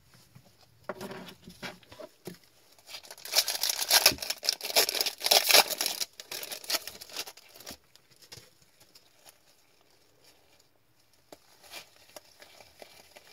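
Foil wrapper of a hockey card pack being torn open and crinkled, loudest from about three to seven and a half seconds in, then faint rustling as the cards are handled.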